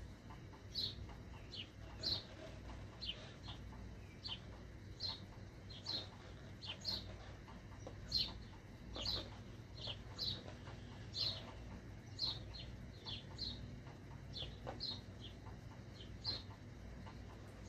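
Sharpie marker tip squeaking on a rubber balloon as letters are drawn: short, high squeaks at an uneven pace of roughly one or two a second.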